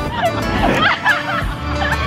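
Roller-coaster riders yelling and shrieking over music, with the loudest wavering cries about a second in.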